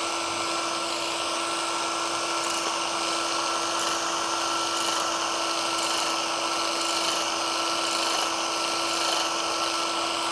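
Electric power scraper running with a steady hum as its reciprocating blade scrapes a crosshatch pattern into a flat metal plate.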